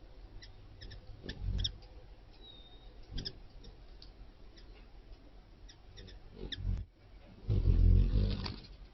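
Lesser long-nosed bats at a nectar feeder: a few short, low wing-flutter bursts as they come in, the loudest and longest lasting about a second near the end, with scattered short clicks.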